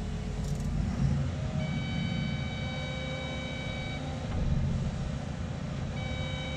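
Cat 330 Next Gen excavator heard from inside the cab: the diesel engine runs with a steady low drone while the boom, stick and bucket are worked under grade assist. A steady high-pitched whine comes in about one and a half seconds in, stops about four seconds in, and starts again near the end.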